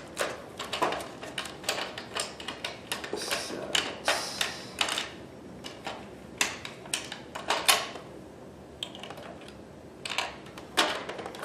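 Irregular clicks and clacks of small parts being handled on a sewing machine, as the straight-stitch needle plate is taken off and the standard plate fitted, with a quieter pause about eight seconds in.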